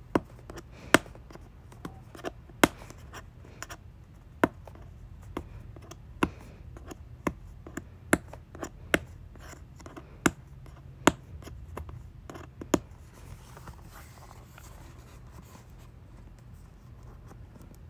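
Fingers and fingernails picking at the tape seal of a cardboard box and handling the box, with a run of sharp irregular clicks. The clicks stop about two-thirds of the way through, leaving quieter rustling of the box.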